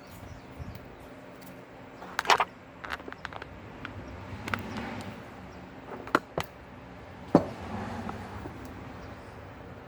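Scattered sharp knocks and clicks, about half a dozen, over light handling and rustling noise, as when tools or metal parts are picked up and set down.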